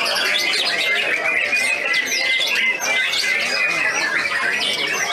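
Many caged songbirds singing and chirping at once in a dense, continuous chorus of overlapping whistles and trills.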